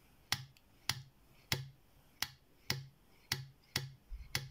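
Homemade pick gun snapping repeatedly in the keyway of an IFAM padlock: about eight sharp clicks, roughly two a second, as it strikes the pins.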